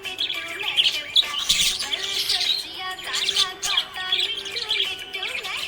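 Budgerigars chirping and warbling without a break: many quick, overlapping chirps.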